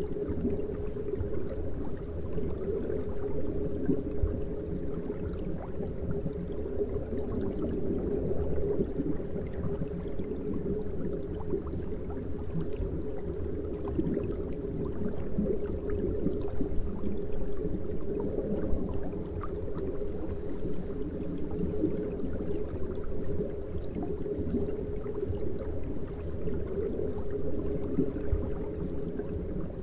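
Steady bubbling and gurgling of water from an aquarium's air-driven sponge filter.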